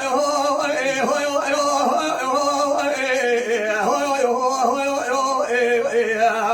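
Kurdish dengbêj singing: one man's voice holding a long, wavering, ornamented vocal line that stops just at the end.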